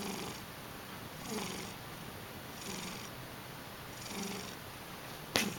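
A sleeping house cat snoring, four breaths about a second and a half apart, each a low buzzing hum with an airy hiss. Near the end there is a single sharp click.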